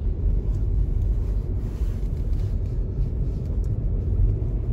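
Car engine and tyres heard from inside the cabin: a steady low rumble as the car climbs a steep snow-covered hill, wheels spinning and barely gripping with traction control switched off.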